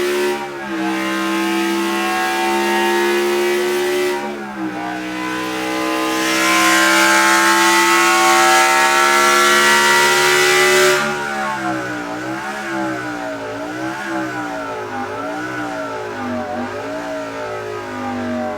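Bugatti V16 engine being revved: held at a steady high pitch, dipping briefly about four seconds in, then climbing and loudest until about eleven seconds, followed by a run of quick throttle blips rising and falling about once a second. It sounds bassy, almost two notes at once.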